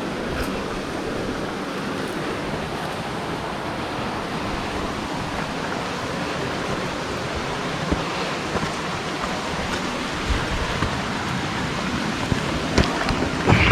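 Steady rush of flowing creek water near a waterfall, with a few sharp knocks near the end.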